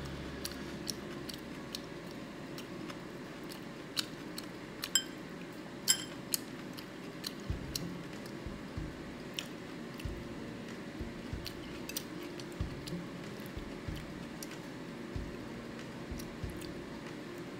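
Metal chopsticks clicking and clinking against a ceramic bowl of cubed radish kimchi, with chewing; irregular sharp clicks, a few of them ringing briefly, and some dull knocks.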